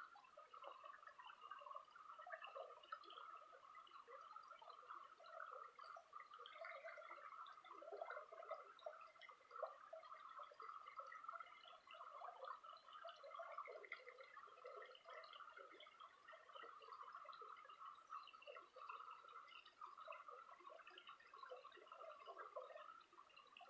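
Faint, steady sound of a small creek's running water trickling.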